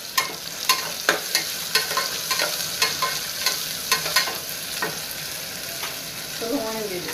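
Sliced red onions frying in hot oil in an aluminium pressure cooker, with a steady sizzle, while a steel ladle stirs them, clinking and scraping against the pot about twice a second; the clinks thin out after about five seconds.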